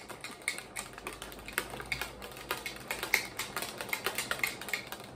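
Plastic shaker bottle being shaken hard, its contents rattling against the walls in a fast run of sharp clicks that stops near the end.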